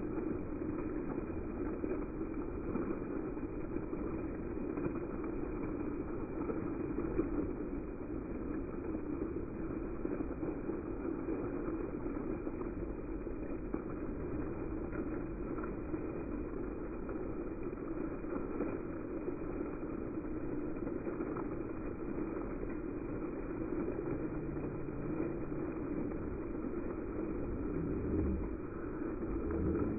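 Steady rushing of fountain water jets splashing into a shallow pool, with an even hiss throughout. A brief low rumble swells near the end.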